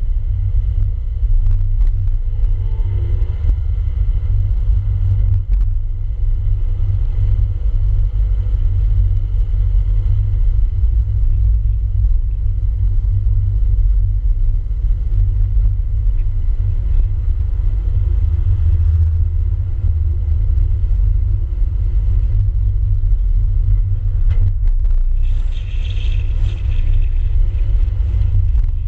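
Steady low rumble of a car driving along a town road, with road and wind noise; a short higher hiss rises near the end.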